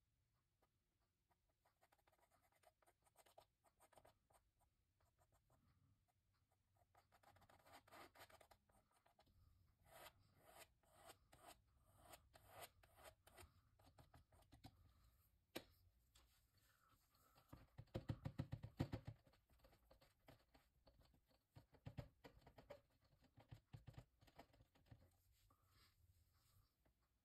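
Palette knife scraping acrylic paint across a canvas in a series of faint short strokes, with a louder, heavier run of scraping about two-thirds of the way through.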